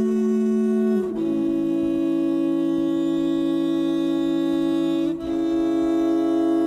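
Background music: slow, sustained low held notes that move to a new chord about a second in and again about five seconds in.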